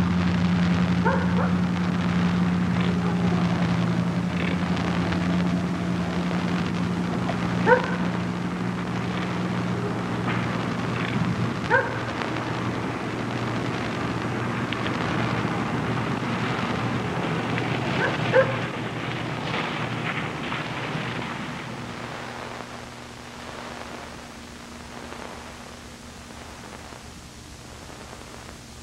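A dog barking a few times, short single barks several seconds apart, over a steady hiss and low hum; the hum stops about halfway through and the background fades quieter near the end.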